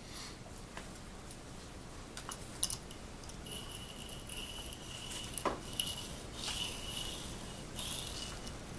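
Steel chisel in a wheeled honing guide being rubbed back and forth on a whetstone wet with honing fluid. A few light clicks of handling, then from a few seconds in a hissing scrape with each stroke, about one a second, over a thin high whine.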